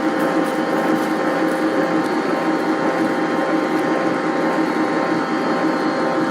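Electric stand mixer running on high, its motor and gears whirring steadily with a constant hum as it beats freshly boiled caramel icing.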